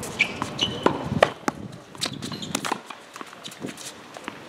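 Tennis ball struck by a racket and bouncing on a hard court, with sneakers squeaking and scuffing on the surface. The sharpest hit comes about a second in, and only lighter taps and steps follow after about three seconds.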